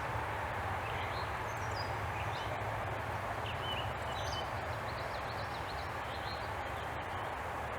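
Outdoor background ambience: a steady low rumble and hiss, with faint, short, high bird chirps scattered through the middle.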